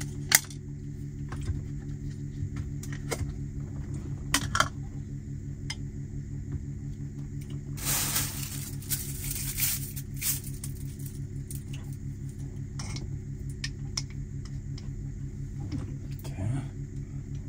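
Scattered light clicks and clinks of a spoon and chopsticks against bowls and a glass jar while eating, over a steady low machine hum.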